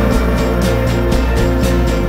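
Background music with a steady beat, bass and sustained tones.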